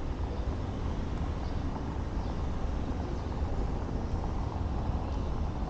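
Car driving along a cobbled street, heard from a microphone on its roof: a steady low rumble of tyre, road and wind noise.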